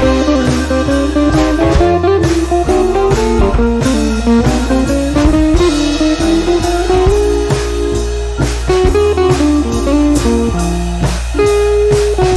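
Background music: a guitar-led track with drums keeping a steady beat.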